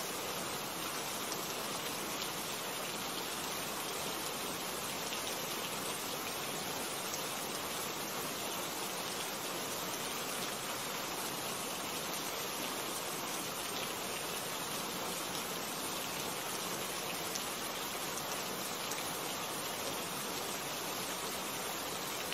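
Steady rain falling, an even hiss of many drops with no breaks or thunder.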